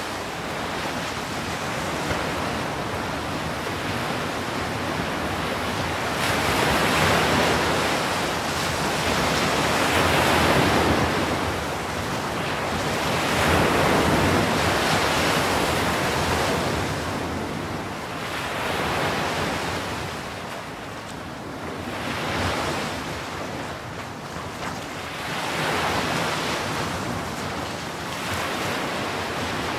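Ocean surf: waves breaking and washing ashore, a rush of foaming water that swells and eases every few seconds.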